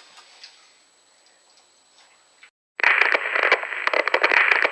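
Faint room tone, then after an abrupt cut about two and a half seconds in, loud crackling static full of clicks.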